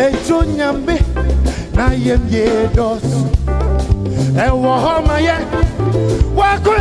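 Gospel worship music: a lead voice sings a bending melody over a band with held bass notes and regular drum hits.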